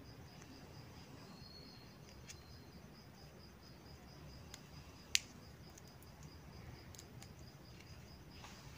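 A cricket chirping steadily, a high, quick, even pulse, with a single sharp click about five seconds in.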